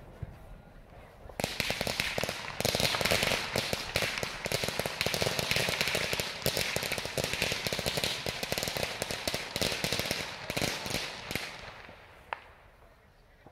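A string of firecrackers going off in a rapid, continuous crackle that starts about a second and a half in, grows louder, and dies away after about ten seconds.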